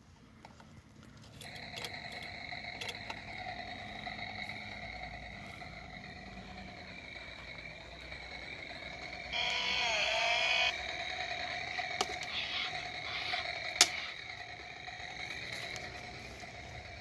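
Toy Stihl chainsaw's electronic motor sound from its small speaker: a steady buzzing drone that starts about a second and a half in, swelling to a louder, wavering rev for about a second near the middle. A few sharp clicks come later, the loudest a little past the middle.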